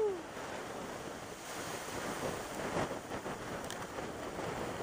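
Strong hurricane wind blowing over the microphone: a steady rushing noise.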